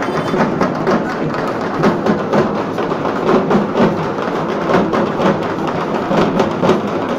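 A troupe of shoulder-slung barrel drums beaten together in a loud, fast, continuous rhythm of dense strikes.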